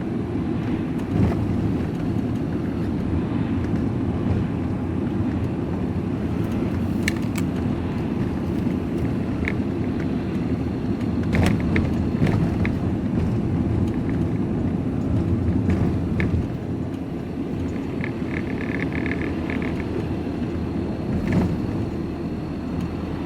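Steady engine and road rumble heard from inside a moving vehicle's cab while driving, with a few short clicks and rattles and a quick run of ticks near the end.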